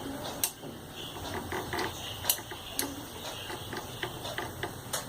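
Small, irregular sharp clicks and light handling noises from wires and terminal connectors being fitted to a refrigerator compressor's relay and overload protector.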